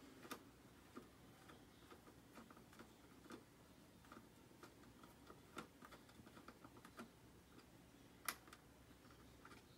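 Faint, irregular small clicks and ticks of a hand screwdriver backing a Phillips screw out of a football helmet's face mask, over near silence; two ticks stand out a little, about halfway through and near the end.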